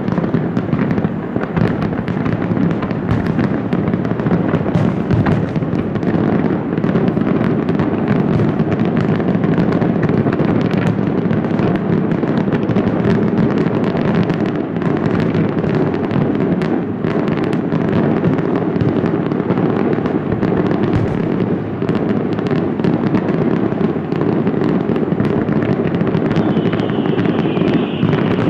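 Continuous barrage of aerial fireworks shells bursting, with many overlapping bangs and crackles merging into a steady rumble. A higher steady hiss joins near the end.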